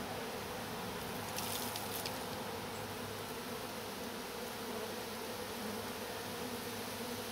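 Honey bees buzzing in a steady hum at an opened hive, with a few faint clicks about one and a half seconds in.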